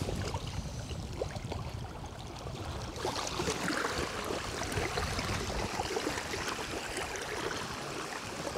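Wind buffeting the microphone with a fluttering low rumble, over small waves lapping against a stony shore.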